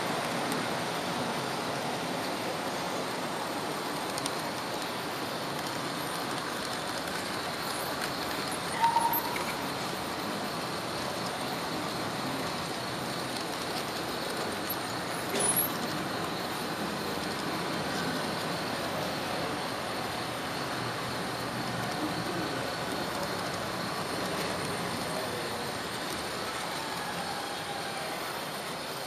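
Model train running along its track, a steady rolling and motor rush heard from on board. A short, louder tonal sound comes about nine seconds in, and a brief click at about fifteen and a half seconds.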